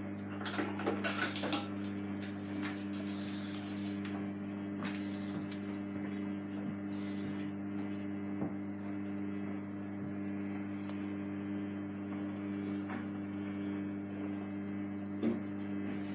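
Samsung WW80J5555FWEU washing machine humming steadily while stuck in a suds lock, with scattered clicks and fizzing crackles, most of them in the first few seconds.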